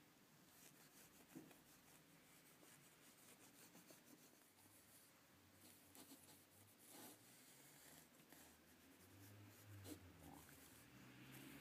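Faint rubbing and scrubbing of a cloth wiping a metal bar clean with thinner, with a couple of light knocks.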